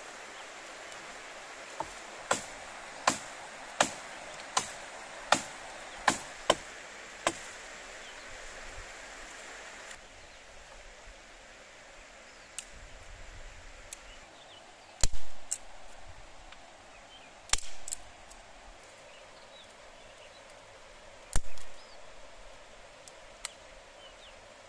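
Hatchet chopping a tree branch: eight sharp blows at a steady pace, a little faster than one a second, over a steady hiss. After a pause come three louder, more widely spaced knocks of wood with a short ring, and a few small clicks.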